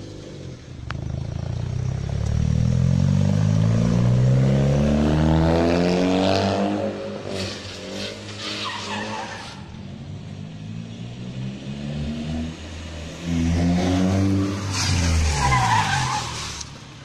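Honda Brio hatchback drifting: the engine revs climb in pitch twice. Each climb is followed by the tyres squealing and skidding on the asphalt for about two seconds.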